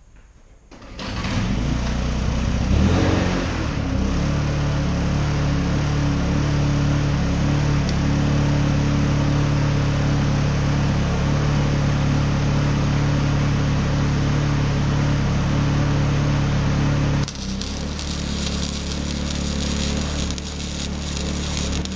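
Honda EU2000i inverter generator starting about a second in, its engine speeding up and then running steadily. About 17 seconds in the engine sound changes and a steady crackling hiss joins it, as an arc welder run off the generator strikes its arc.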